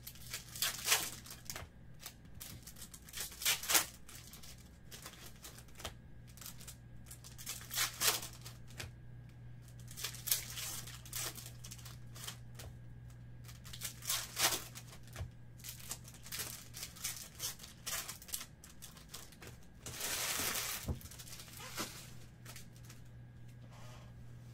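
Foil trading-card pack wrappers being torn open and crinkled by hand, in irregular short bursts every few seconds, the longest about twenty seconds in.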